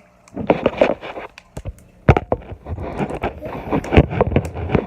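Slime being squeezed and kneaded in the hands, giving an irregular run of sharp wet pops and clicks as trapped air bursts.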